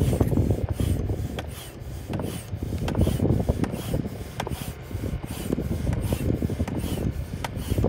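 Hand air pump worked in steady strokes, a little faster than one a second, each stroke with a rasping rush of air, inflating a Party Bana's inflatable podium toward 10 psi.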